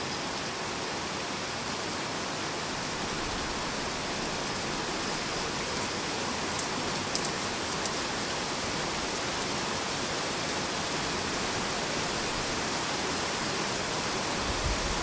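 Heavy rain falling steadily, an even hiss with a few faint drip ticks. Near the end a low rumble of thunder begins.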